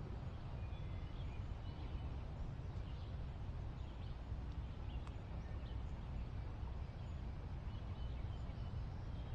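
Quiet woodland background: faint, scattered short bird chirps over a low steady rumble.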